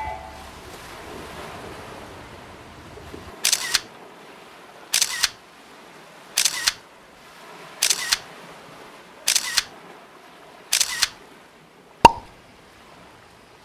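Camera shutter clicking six times at an even pace, about one every second and a half, each a quick double click, then one single sharp click near the end.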